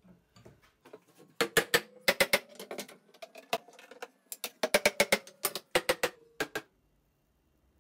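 Small hammer tapping over and over on a wooden batten laid across a clamped walnut end-grain glue-up. The taps are quick and sharp and come in two runs, one starting about a second and a half in and one about four and a half seconds in, with softer taps between them. They stop shortly before the end.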